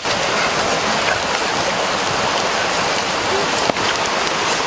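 Whole fish roasting over an open wood fire: a steady, dense sizzling hiss with faint crackles, and one sharper pop about three and a half seconds in.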